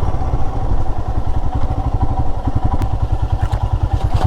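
Royal Enfield Himalayan's single-cylinder engine chugging at low revs on a rough off-road track, its firing pulses coming fast and even, with a few light clattering knocks.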